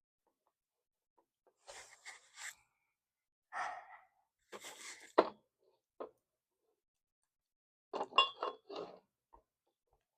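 Glitter slime being stirred and worked in a bowl: a few short sticky squelching and scraping sounds in separate bursts, with one sharp click a little past the middle.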